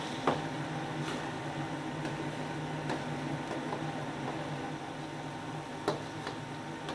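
Steady hum of a commercial wok range, with a metal ladle clinking and scraping against the steel wok as soup is stirred; sharp clinks come about a third of a second in and again near the end.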